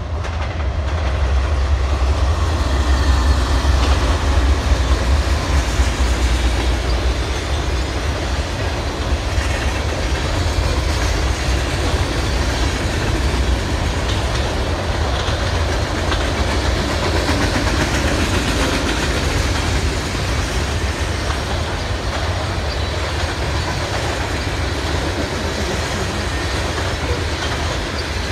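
Norfolk Southern freight train passing close by. The diesel locomotives' deep rumble is loudest a few seconds in as they go by, then gives way to the steady rumble and clatter of freight cars rolling over the rails.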